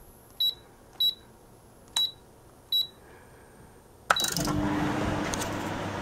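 Samsung CM1929 commercial microwave's keypad beeping four times as the buttons are pressed. About four seconds in a relay clicks and the oven starts running at full power with both magnetrons on, a steady hum with fan noise.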